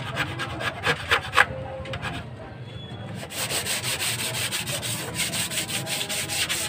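A hand wiping and rubbing across the glass screen of a CRT television: a few separate strokes at first, then quick, steady back-and-forth rubbing from about three seconds in.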